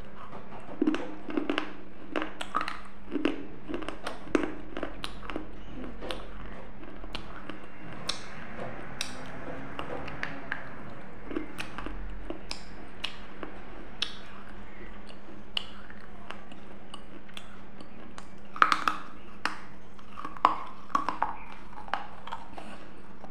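Close-miked crunching bites and chewing on a brittle white clay piece, in a cluster of sharp cracks over the first few seconds and another near the end, with softer chewing between. A low steady hum sits underneath.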